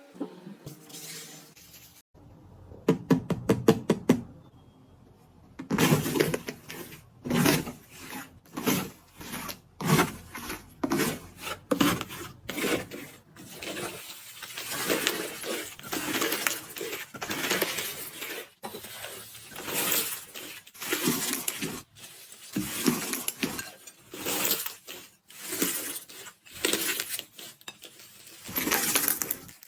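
Crispy iceberg slime being pressed and squeezed, its dried crust crackling and crunching in repeated bursts about one or two a second. A quick run of sharp ticks comes a couple of seconds in.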